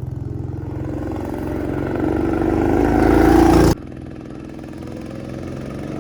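Go-kart's 200 cc Honda engine under throttle, getting louder for about three and a half seconds. It then drops off suddenly and runs on quieter.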